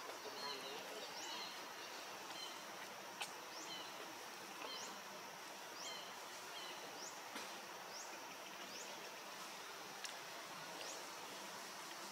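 Forest ambience: a short high rising chirp repeating about once a second, with short high notes between them in the first half, over a steady high hiss. A single faint tap about three seconds in.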